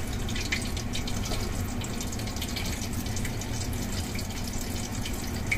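Hot oil sizzling steadily with faint crackles as pieces of flounder coated in potato starch deep-fry.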